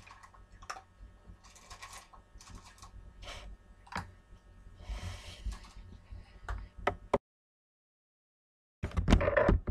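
Small dogs eating and chewing: scattered crunches and clicks as a Chihuahua puppy eats kibble from a metal bowl and a Shih Tzu gnaws a chew stick. The sound drops out abruptly for about a second and a half, then a louder burst of noise comes near the end.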